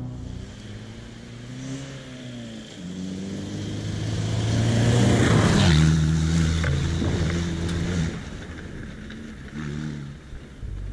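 Off-road rally car engine accelerating and revving, with pitch glides and steps. It grows louder to a peak about halfway through, then fades as it pulls away.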